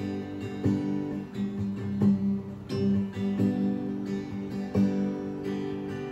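Acoustic guitar strumming chords, with a steady strum about every two-thirds of a second and no singing.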